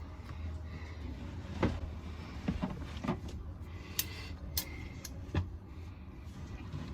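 An oil filter wrench gripping and straining at a stuck oil filter, making scattered short clicks and knocks, about seven over several seconds, over a low steady hum.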